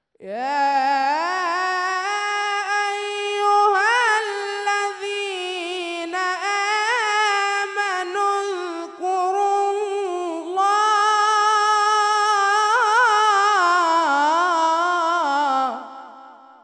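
A teenage reciter's voice in melodic Quran recitation (tajwid), drawing out long melismatic phrases on held, wavering notes with ornamental turns. The voice rises into its first note at the start, drops away briefly about ten seconds in, picks up on a second long phrase, and falls in pitch as it fades near the end.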